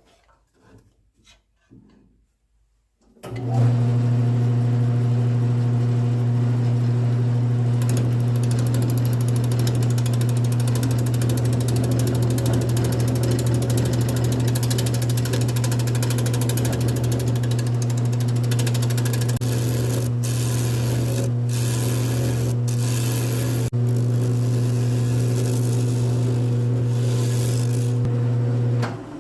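Wood lathe starting up about three seconds in, its motor humming steadily, with a turning tool cutting into a spinning poplar slab from a few seconds later; the cut briefly lifts off several times. The lathe stops near the end.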